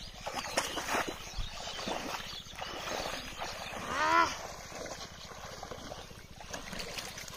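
Water sloshing and splashing as bamboo polo fish traps are plunged into shallow pond water, with scattered small knocks. About four seconds in comes a short call that rises and falls, the loudest sound.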